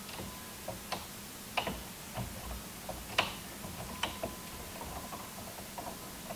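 Small irregular clicks and scrapes of stiff copper wires and a plastic wire nut being twisted together by hand inside a metal breaker panel, the sharpest click a little past three seconds in.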